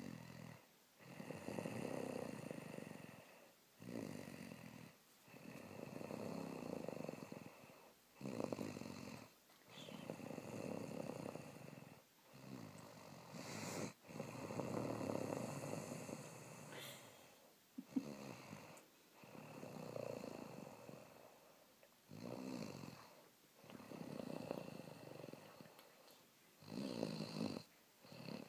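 A person snoring in a steady rhythm while asleep. A long snore comes about every four to five seconds, with a shorter breath sound between them.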